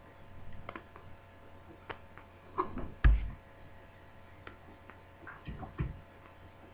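Small screws being taken out of a laptop screen frame: scattered light clicks and taps of a screwdriver on the screws and plastic. One louder knock comes about three seconds in, and a few more knocks come near the end.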